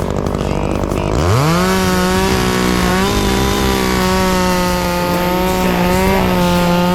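Chainsaw idling, then revved to full throttle about a second in and held at a high, steady pitch while clearing brush and saplings.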